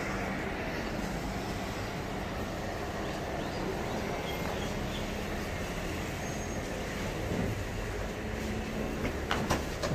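A black Mercedes-Benz saloon moving slowly at walking pace, a steady low engine and tyre rumble, with a few sharp clicks near the end.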